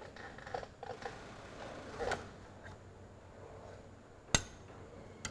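Quiet metal handling noises as a spanner turns the nut on a threaded-rod puller drawing a king pin bush into a tractor's front axle, with one sharp click about four seconds in and a smaller one near the end.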